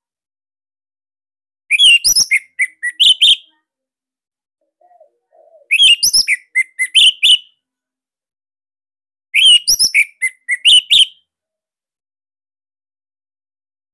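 Orange-headed thrush (anis merah) singing three short phrases of rapid, sharp notes, each about a second and a half long, with pauses of a few seconds between them.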